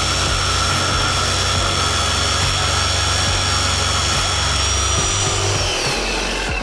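Electric jigsaw running with a steady motor whine, then winding down and stopping near the end.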